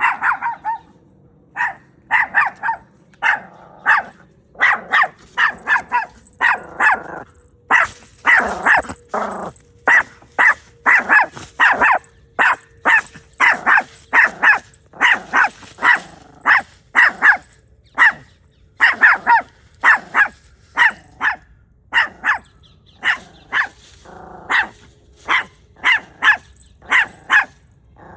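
A puppy barking over and over in short, sharp barks, about one or two a second, with a longer, rougher stretch of growly barking about a third of the way in.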